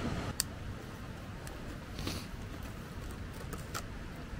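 Hand handling sounds while a fire is being lit: a few sharp, scattered clicks and light knocks over a steady low background rumble.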